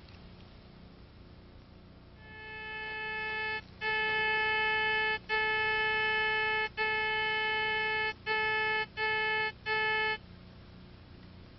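Sewer-locator receiver's audio signal tone: one steady, buzzy note that swells in, then holds at a single pitch. It cuts out briefly six times before stopping abruptly. The tone reports the signal the receiver picks up from the buried sewer transmitter.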